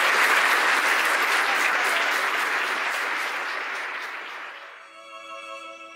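Congregation applauding and cheering in a church, fading away over about four seconds. Slow music with long held notes comes in near the end.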